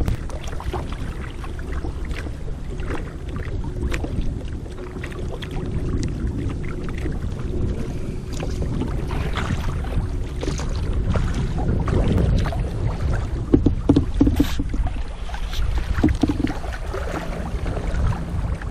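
Sea kayak under way: water sloshing and splashing against the hull as paddle blades dip in, in an irregular rhythm, over a steady low rumble. A few short squeaky sounds come about two-thirds of the way in.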